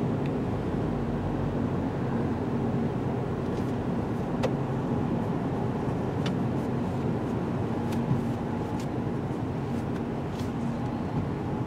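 Car interior road noise while driving: steady tyre and engine sound on a wet road, with a low hum and a few faint ticks.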